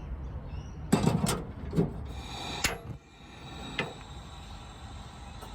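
A handful of short knocks and clunks from kitchen handling, about five over three seconds, over a steady low hum.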